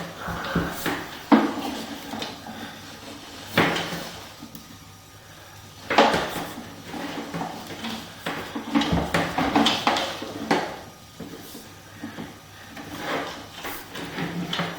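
A sewer inspection camera and its push cable being worked along a drain pipe: irregular knocks and rattling clatters every few seconds, with a busier run of clattering about two-thirds of the way through.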